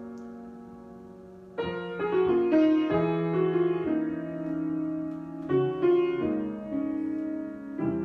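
Solo piano improvisation. A held chord dies away, then new chords are struck about a second and a half in, with notes moving over them, and fresh chords come again past the middle and near the end.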